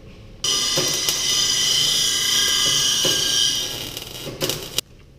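Power tool cutting into the steel exhaust pipe: a steady high-pitched whine over metallic grinding, starting abruptly about half a second in, with a few sharp clicks, and cutting off just before the end.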